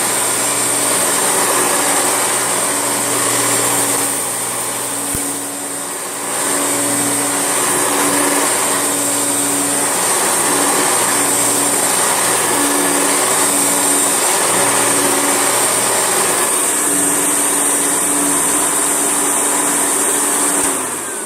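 Hoover Turbolite vacuum cleaner running as it picks up a pile of debris: a steady motor noise with a high whine. It dips briefly about five seconds in and is switched off at the very end.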